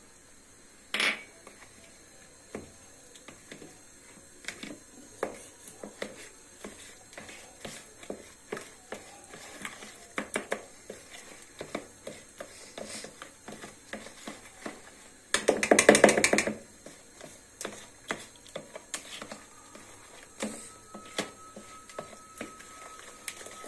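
Spoon clinking and tapping against a bowl while mixing cake batter, with a loud rattle of quick strokes lasting about a second a little past the middle. A faint steady tone sounds near the end.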